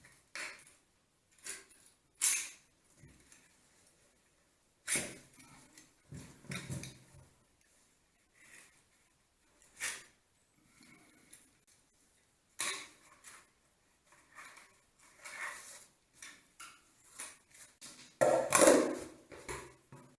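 Irregular clicks, knocks and clinks of hard metal parts and tools being handled, with a louder scraping, rattling burst near the end.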